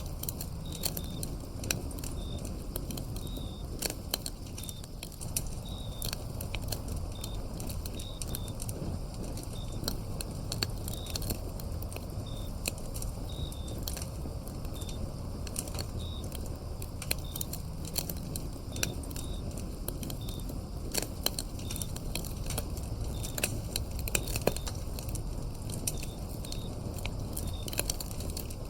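Wood fire burning, with frequent sharp crackles and pops over a steady low rumble. Crickets chirp in short, high notes at one pitch.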